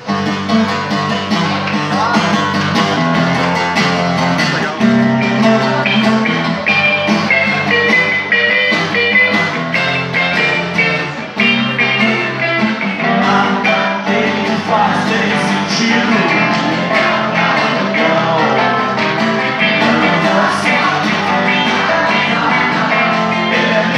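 Live band playing a rock song, with strummed acoustic guitar, electric guitar and electric keyboard together.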